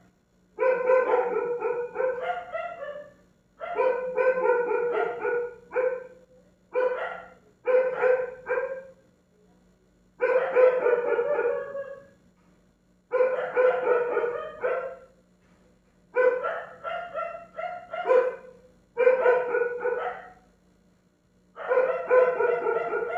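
A dog barking over and over in bouts of several quick barks, a new bout about every three seconds, with a steady low hum underneath.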